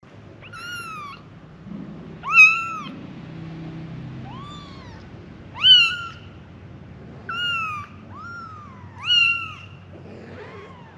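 Young kittens meowing, calling for their mother: about eight short, high-pitched mews, each rising then falling in pitch, from more than one kitten, three of them noticeably louder.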